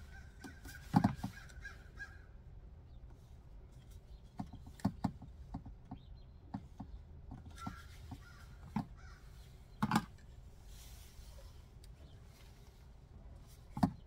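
Sharp clicks and knocks of plastic parts as a water bottle pump and its tubing are fitted onto a jug and a basin lid, loudest about a second in, near ten seconds and near the end. Crows caw in the background, mostly in the first couple of seconds and again about halfway through.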